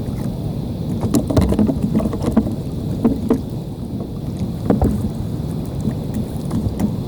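Wind rumbling on the microphone, with water splashing and lapping and scattered small knocks.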